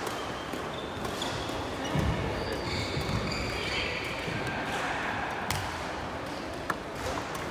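Badminton rally in a sports hall: low thumps of feet on the wooden court about two seconds in, short shoe squeaks, and sharp racket hits on the shuttlecock later on, against the hall's echoing background.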